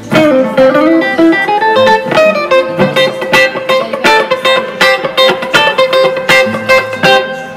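Electric guitar played through a combo amp set to its spring reverb: a quick run of picked notes with a recurring held note, each ringing on in the reverb.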